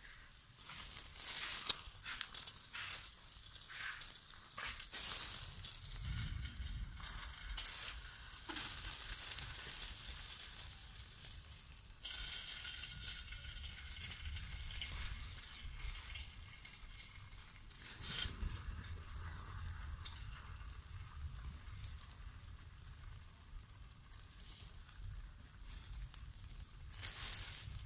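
Chicken drumettes sizzling and crackling on a wire grill over charcoal as sauce is basted onto them, with scattered sharp pops.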